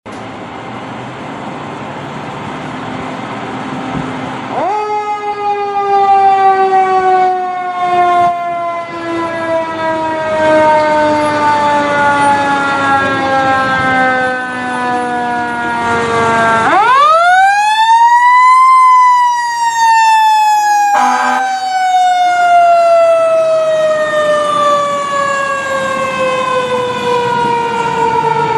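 Fire engine siren. It starts about five seconds in and slowly falls in pitch, then winds up sharply again and slowly falls away once more, over the sound of the truck's engine.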